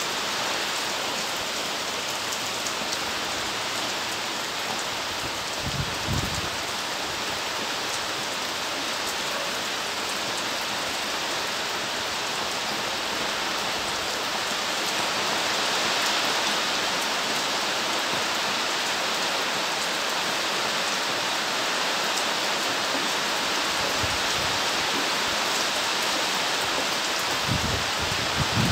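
Steady rain falling and pattering on surfaces, an even dense hiss, with a few brief low thumps about six seconds in and again near the end.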